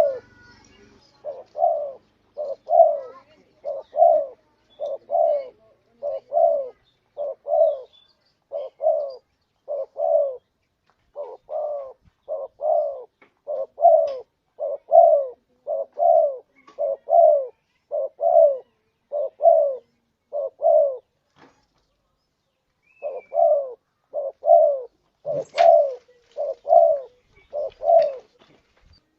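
Spotted dove (tekukur) cooing: a steady run of short, low coos about one and a half a second, each note dropping slightly in pitch, with a pause of about two seconds some three quarters of the way through. A faint higher chirp and a single click come shortly after the pause.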